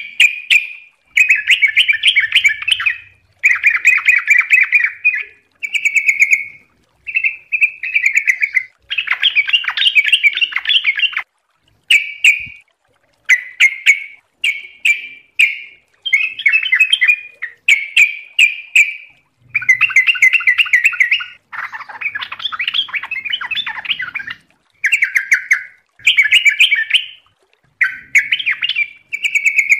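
Yellow-vented bulbul (trucuk) singing: a run of bubbly, chattering phrases, each a second or two long and made of rapid notes, with short pauses between them.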